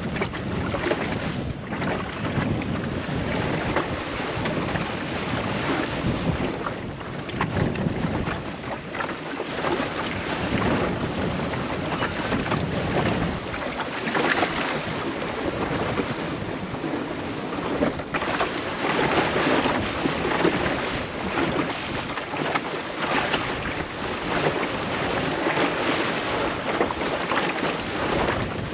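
Wind buffeting the microphone over the rush and slap of sea water along the hull of a small open sailing boat under way, swelling and easing every few seconds.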